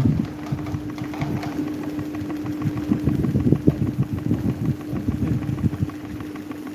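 Electric desk fan running: a steady motor hum with a fast, irregular rattle under it.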